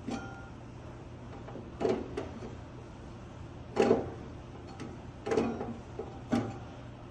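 Knocks and clunks of metal parts being handled as an air-conditioner fan motor, its mounting screws out, is worked loose. There are about five separate clunks, the loudest near the middle, over a faint steady low hum.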